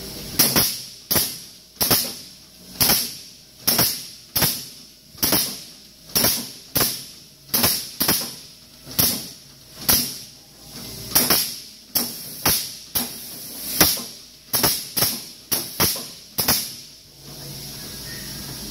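Mechanical flywheel punch press cycling over and over, with a ringing clank on each stroke. It makes about two dozen strokes, a little under a second apart at first and coming somewhat faster later, then stops about 17 seconds in.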